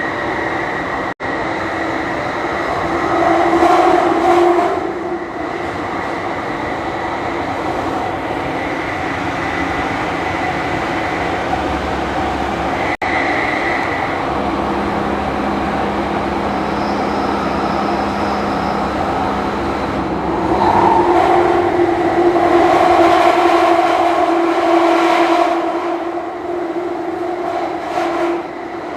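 Jubilee line Underground train running through the tunnel, heard from inside the carriage: a steady rumble with humming motor tones. It swells louder a few seconds in and again for several seconds later on. The sound drops out for an instant twice.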